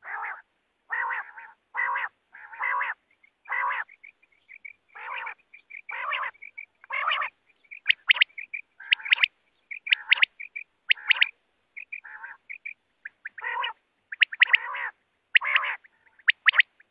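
Common quail calling. A run of short, raspy calls, about one a second, gives way about halfway through to sharp, clipped notes in quick groups of two or three, with small whistled notes in between.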